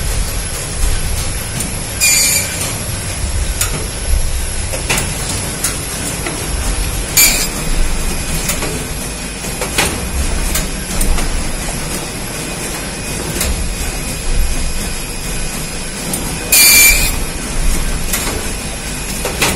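Single-clamp perfect binding machine running with a steady mechanical rumble, broken by three short hissing bursts and several sharp clicks.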